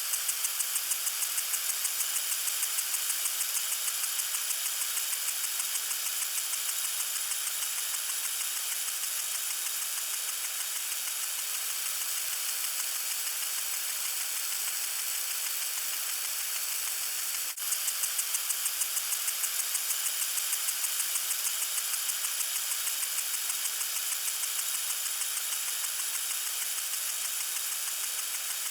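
Water sprinkler spraying: a steady hiss with a fast, even ticking of about five pulses a second. The sound drops out for a moment about two-thirds of the way through, then the ticking picks up again.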